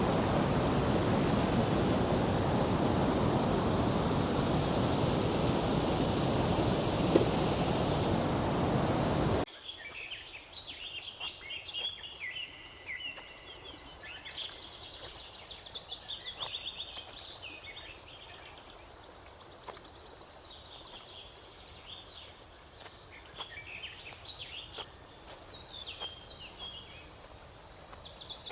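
Waterfall rushing steadily, cut off abruptly about nine seconds in. Then birds chirp and trill over a faint hum of insects for the rest of the clip.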